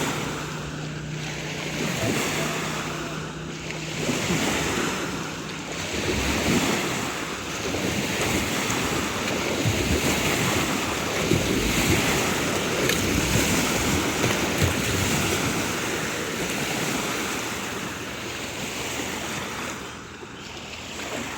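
Surf breaking and washing on a beach, with wind buffeting the microphone; the rush of water swells and is loudest through the middle.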